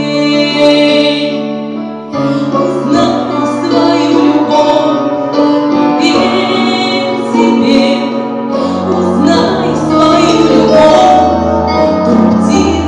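Female vocalist singing into a microphone over a recorded backing track.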